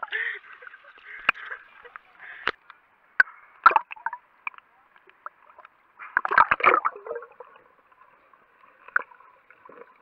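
Sea water sloshing, gurgling and splashing against a waterproof action camera as it dips under and breaks the surface, with scattered sharp clicks and a louder burst of splashing about six to seven seconds in.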